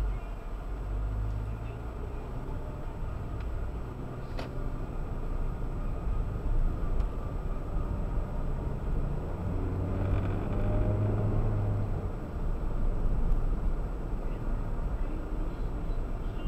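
Engine and road rumble inside a moving car's cabin, picked up by a dashboard camera's built-in microphone, with a short click about four and a half seconds in and a faint steady high whine throughout.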